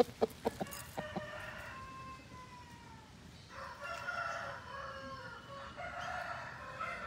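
A few short, sharp rooster clucks in the first second, then two long, faint crows, one after the other.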